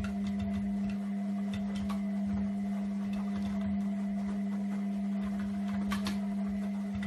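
Front-loading washing machine running: a steady hum over a low, uneven rumble from the turning drum, with a few light taps as a cat paws at the glass door.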